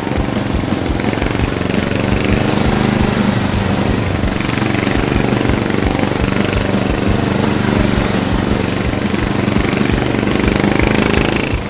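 Small riding-mower engine of a lowered Murray lawn tractor, running under throttle as the tractor is driven, its pitch rising and falling. It is running on about a quarter choke because of a carburettor problem.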